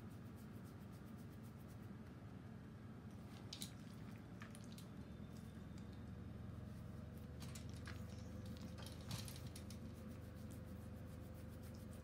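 Faint rustling and soft clicks of a Shiba Inu being stroked and shifting against a wire pen, over a low steady room hum. A few sharper clicks come about a third of the way in, and a cluster comes about two-thirds in.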